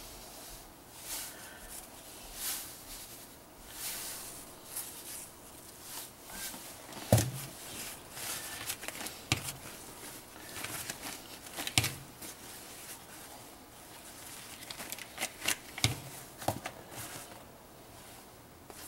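Paper towels rustling and crinkling as small whole fish are handled and patted dry in a plastic colander, with a few sharp knocks.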